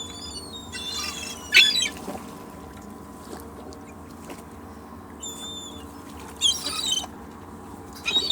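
Seagulls calling in short bursts of squealing cries, loudest about a second and a half in and again near 6.5 s and at the end, over a steady low background.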